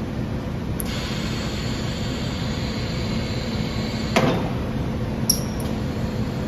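Steady machine-shop hum, with a single knock about four seconds in as the double-end coil reel's over-arms swing up.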